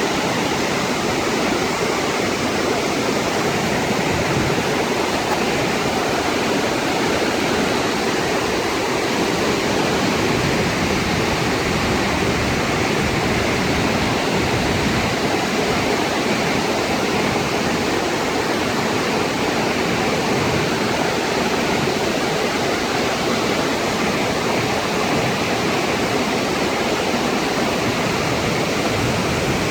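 Flash-flood water rushing steadily down a desert canyon and over a waterfall, a loud, even roar of churning water.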